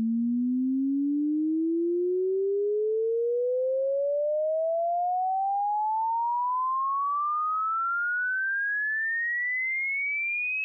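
Sine-wave test sweep: one pure tone rising smoothly and steadily in pitch, from about 200 Hz to about 2.5 kHz, played for a frequency-response measurement.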